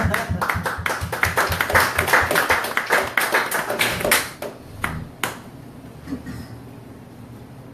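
A small audience applauding, dense clapping for about four seconds that thins out to a few last claps and stops.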